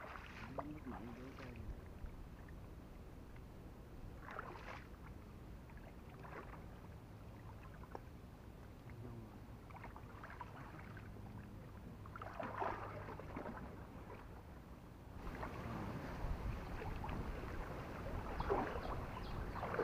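Water sloshing and splashing as a fishing net is dragged through a shallow canal, in scattered brief splashes, becoming louder and more continuous from about three-quarters of the way through.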